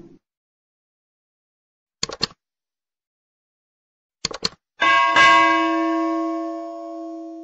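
Subscribe-button sound effect: a quick cluster of mouse clicks about two seconds in and another a couple of seconds later, then a bell chime struck and ringing out in several tones, fading slowly over about three seconds.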